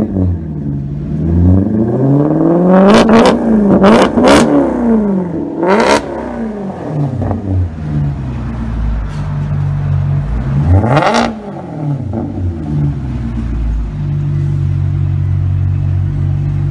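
Maserati Quattroporte V8 revved through a straight-piped exhaust with the mufflers deleted: a quick run of sharp revs over the first six seconds, one more about eleven seconds in, then a steady loud idle for the last few seconds.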